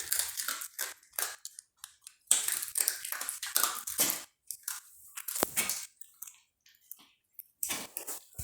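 A dog crunching and chewing pieces of dry kibble given as training treats, a string of irregular crunches with short pauses.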